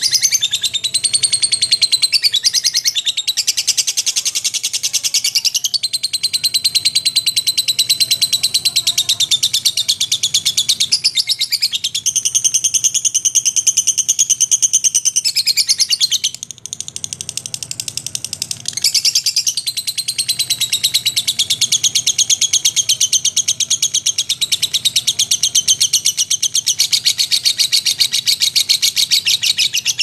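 Lovebird singing its long 'ngekek' song: a continuous, rapid, high-pitched chattering trill, briefly weaker and broken a little past the middle.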